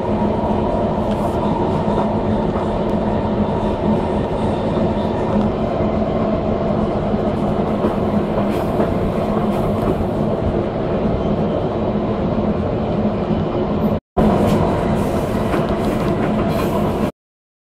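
Passenger train running, heard from on board: a steady rolling din of wheels on rails with a constant hum. It drops out for an instant about fourteen seconds in, then cuts off suddenly near the end.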